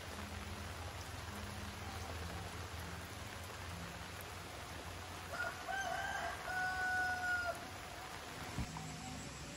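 A rooster crowing once, a little past the middle: a few short notes and then one long held note, over steady background noise. A single short knock follows near the end.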